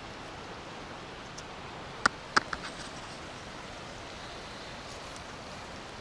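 Steady rush of running water, with two sharp clicks a little after two seconds in and a few fainter ticks.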